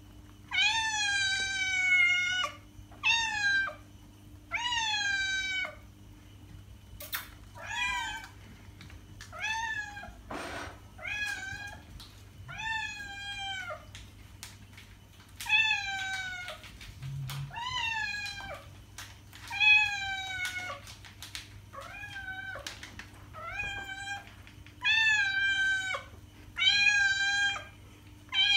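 Domestic cat meowing over and over, about fifteen meows one to two seconds apart, each dropping in pitch at its end. A couple of sharp clicks fall in the first half.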